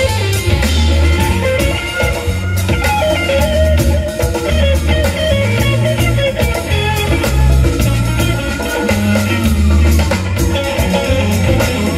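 Live band playing with an electric guitar taking a solo over bass guitar, drum kit and congas.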